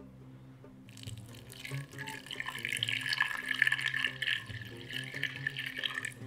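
Water poured from a glass jug onto chicken pieces in a stainless steel pot: a steady splashing pour that starts about a second in and stops just before the end.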